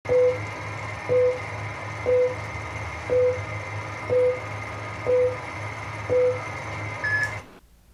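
Film countdown leader beeps: a short, identical beep about once a second, seven in all, over a steady hum and hiss. A brief higher tone comes near the end, then the sound cuts off.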